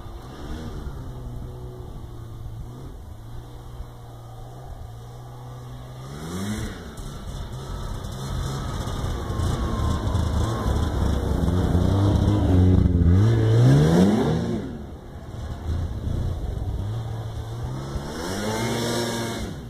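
Ski-Doo Tundra snowmobile engine revving as the sled drives around, passing close to the microphone. The revs climb three times, about six seconds in, around the middle and near the end; it is loudest in the middle pass.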